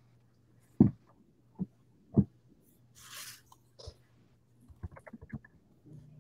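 Three dull knocks in the first couple of seconds, a short hiss a little past the middle, then a quick run of small clicks, all over a steady low hum.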